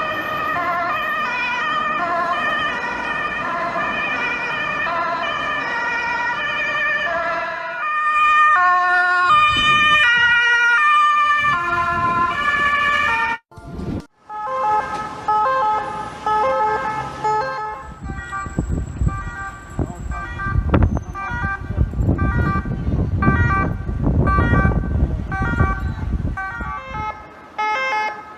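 Ambulance siren sounding loudly, changing between tone patterns: first a steady alternation between pitches, then quicker stepped warbles. It cuts out for about a second around halfway, and a low rumble runs under it for much of the second half.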